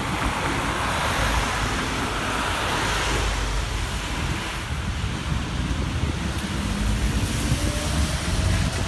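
Street traffic noise on a wet road: a Cobra low-floor tram rolls past among cars, with a steady hiss of tyres on the wet surface and a low wind rumble on the microphone. Near the end a faint whine rises slowly, as a tram's traction motor would when pulling away.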